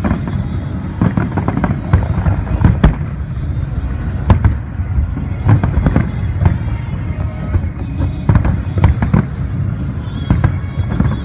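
Fireworks display: shells bursting in quick irregular succession, sharp bangs and booms over a steady low rumble.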